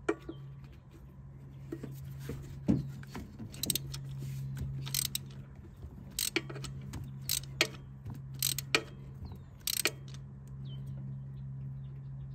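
Ratchet wrench tightening a new spark plug, sharp clicks at irregular intervals. A steady low hum runs underneath.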